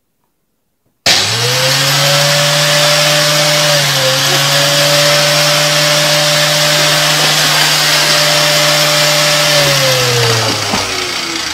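Vacuum cleaner motor switched on: its whine rises quickly to a steady pitch over a loud rush of air, dips once briefly, then falls in pitch as the motor winds down near the end.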